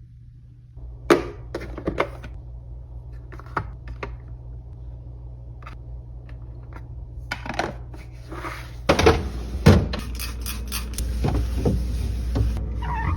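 Knocks, clunks and clatter of food containers and fridge parts being handled, over a steady low hum. From about nine seconds in a louder rushing noise joins, with several sharper knocks.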